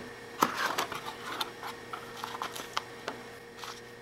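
Small cardboard product box being handled and opened: an irregular run of sharp clicks, scrapes and crinkles from the cardboard flaps and the plastic packaging inside.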